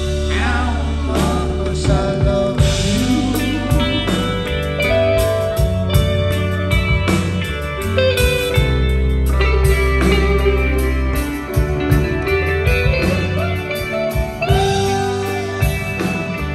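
Live blues-rock band: a male voice sings a line over electric guitar, bass and drums, then the lead Fender electric guitar plays long held notes with bends.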